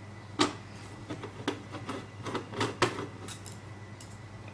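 Small metallic clicks and taps of a Phillips screwdriver working screws out of a uPVC sash lock's brass plate, with sharper clicks about half a second, a second and a half and nearly three seconds in.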